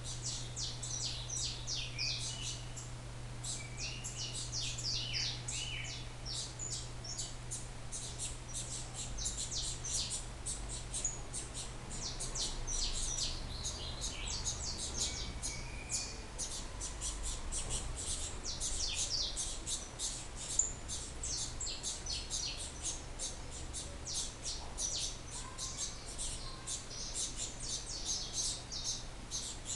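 Saffron finches (canário-da-terra), a female feeding her chicks, chirping in a cage: a dense, unbroken run of short high chirps, with a few lower whistled notes in the first few seconds. A steady low hum runs underneath.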